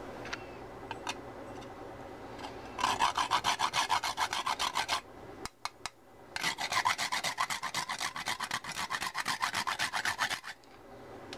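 Whole nutmeg grated on a small flat metal hand grater, in two runs of quick, rhythmic rasping strokes with a short pause between them.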